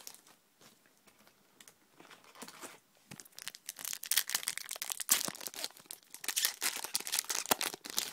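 A Pokémon card booster pack wrapper being torn open and crinkled. A dense, loud crackling starts about three seconds in and stops just before the end.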